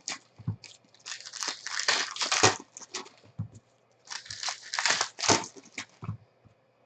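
Crinkling and tearing of a trading card box's packaging as it is opened, in irregular rustling spells that stop about six seconds in.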